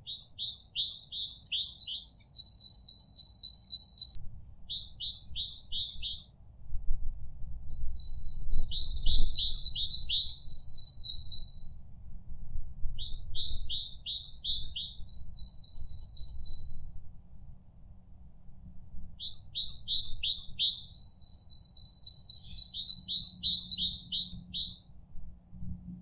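A songbird singing phrase after phrase, each a quick run of high descending notes mixed with a thin trill, with short pauses between phrases.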